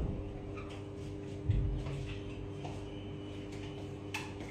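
Faint handling noise: a soft low thump about a second and a half in and a click near the end, over a steady low hum.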